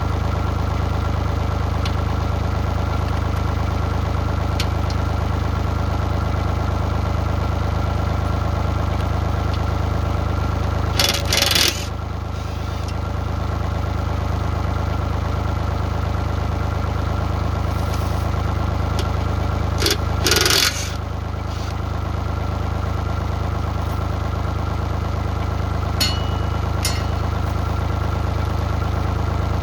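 Mini excavator's diesel engine idling steadily while it warms up. Two short harsh scraping noises break in, about eleven and twenty seconds in, and two sharp clicks come near the end.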